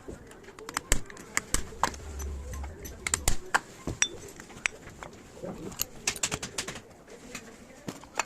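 Irregular sharp metallic clicks and clinks of tools and starter-motor parts being handled, with a brief low hum about two seconds in.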